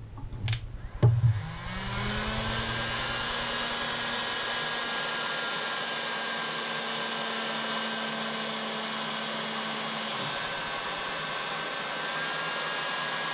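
A few knocks from handling, then a heat gun switches on about a second and a half in: its fan motor spins up with a rising hum and blows steadily while it shrinks heat-shrink tubing over coax cable. The low hum drops away about ten seconds in while the blowing carries on.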